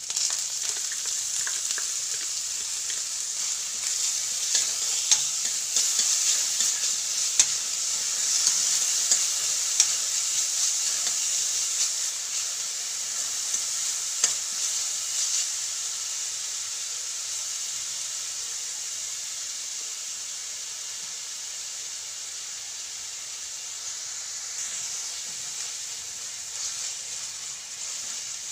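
Finely chopped onion sizzling in hot oil in a steel kadhai, stirred with a spatula that clicks and scrapes against the pan now and then. The sizzle is strongest in the first half and slowly fades toward the end.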